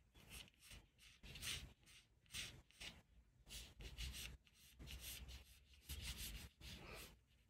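Graphite pencil drawing on paper: a run of faint, short scratching strokes with brief gaps between them.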